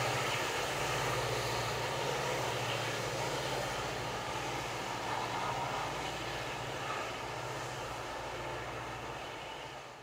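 Departing freight train's diesel locomotives heard receding: a steady low engine drone over a broad rumble of rolling train noise, slowly fading away.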